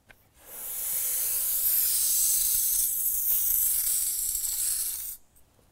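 Gas hissing out of a loosened refrigerant hose fitting at the top of a recovery tank as air is purged from the hoses, starting about half a second in and cutting off sharply near the end.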